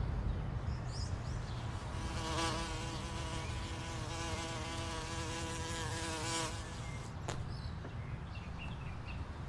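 A flying insect buzzing in a steady, slightly wavering drone that starts about two seconds in and stops after about four and a half seconds, over a low outdoor rumble.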